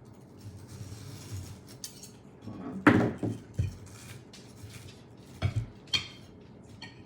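Kitchen utensils clattering against dishes: a cluster of sharp knocks about three seconds in, the loudest, and two more knocks about two seconds later.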